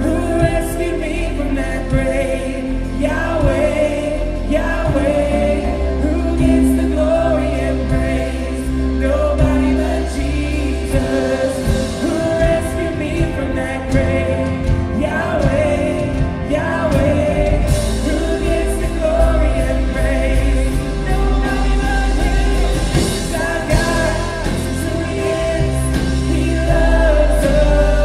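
A live worship band plays a song with singers: several voices over a full band of guitars, bass, drums and keys, at a steady moderate tempo.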